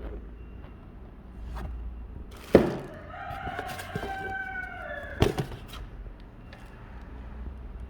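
A rooster crows once, a single call of about three seconds that falls in pitch at the end. Two sharp knocks, the loudest sounds, come just before the crow starts and just as it ends.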